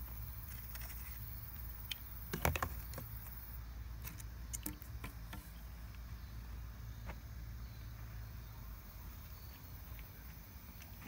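Footsteps and rustling on woodland leaf litter, with scattered clicks and crackles, loudest in a short cluster about two and a half seconds in, over a steady low rumble.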